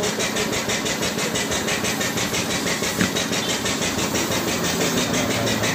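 An engine running steadily with a fast, even beat, with one short knock about three seconds in.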